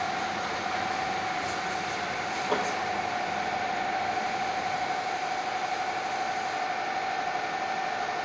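A machine running steadily: an even hiss with a constant whine held at one pitch, and a single click about two and a half seconds in.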